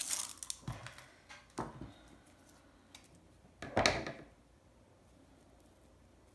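Hands handling paper die-cuts and craft tools on a wooden worktable: a few light rustles and taps, then a louder clatter about four seconds in as a pair of scissors is picked up.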